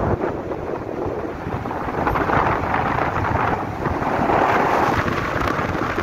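Steady rushing of a fast mountain river over rocks and rapids, mixed with wind buffeting the microphone.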